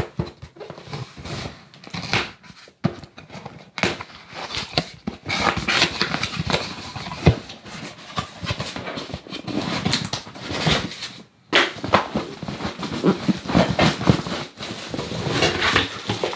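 Unboxing handling noise: a blade scraping along the taped seam of a cardboard box, cardboard flaps rubbing and folding open, and a plastic bag crinkling near the end. Irregular rustles and scrapes, with a couple of brief pauses.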